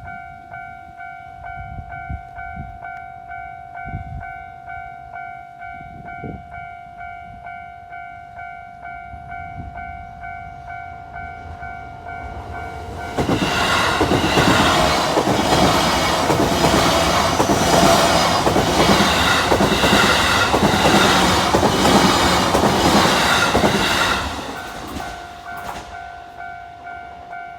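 Japanese railway level-crossing warning bell ringing in a steady repeated electronic ding. A Kawagoe Line train passes through the crossing from about halfway in for some ten seconds, and its loud wheel and rail noise drowns the bell. The bell is heard again near the end once the train has gone.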